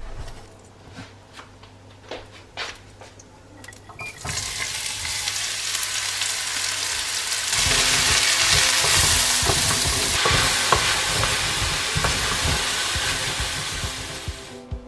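Chopped onions sizzling in hot fat in a stainless steel pot over medium heat, stirred with a wooden spoon that scrapes and knocks against the pot. The sizzle starts about four seconds in and grows louder about halfway through, after a few light knocks at the start.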